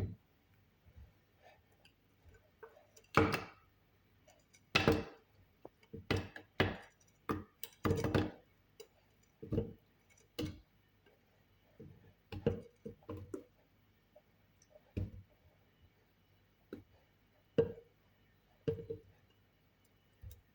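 Ingredients being dropped and placed into a blender jar: a string of irregular knocks and clinks against the jar, about a second apart, some louder than others.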